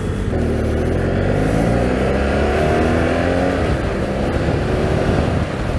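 BMW F800GS motorcycle's parallel-twin engine accelerating under way, its pitch rising over about the first three seconds, then easing off.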